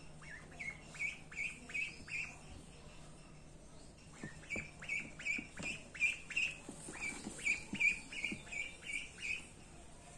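Young duckling peeping: short high calls, about three a second, in a brief run, then a pause of about two seconds, then a longer run of about five seconds.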